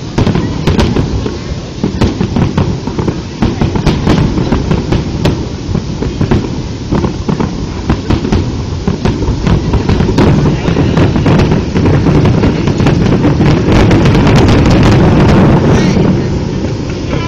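Rapid barrage of aerial fireworks shells bursting: many sharp bangs and crackles over a continuous rumble. It grows denser and louder toward the end, then dies away about sixteen seconds in.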